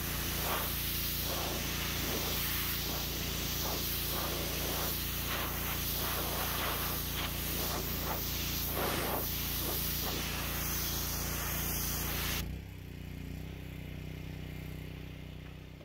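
Pressure washer spraying water onto a vinyl shed roof: a steady hiss of the jet over the hum of the pump. The spray cuts off suddenly about twelve seconds in, leaving a fainter hum.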